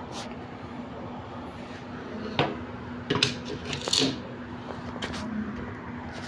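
A few sharp knocks and metallic clinks of tools and parts being handled during washing-machine disassembly, over a steady low hum.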